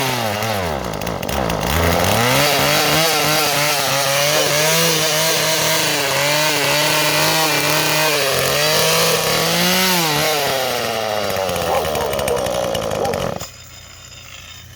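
Husqvarna 240 two-stroke chainsaw running at high revs. The revs drop sharply and nearly die about a second in, pick back up, sag again near the end, and then the engine cuts out abruptly. The saw has a fuel leak that the owner has not traced.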